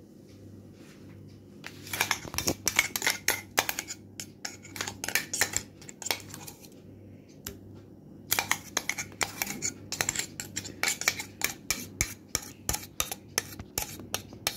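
Spoon scraping and clinking against a small steel tea strainer as orange peel paste is pressed through it into a glass bowl. The rapid scraping strokes come in two stretches with a short pause in the middle.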